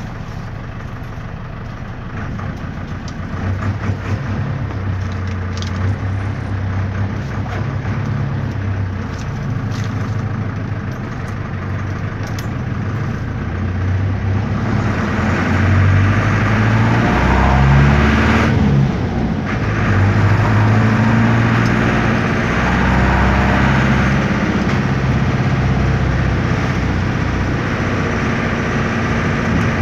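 Otokar M-2000 minibus's air-cooled Deutz F4L912 four-cylinder diesel engine heard from inside the cabin while driving, its note rising and falling in pitch with the revs. It gets louder from about halfway through.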